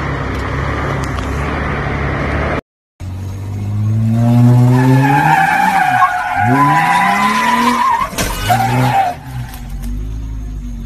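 A Jeep's engine runs steadily at low speed. After a short break, a Jeep's engine revs hard up and down while its tyres squeal on pavement, with a sharp knock about eight seconds in.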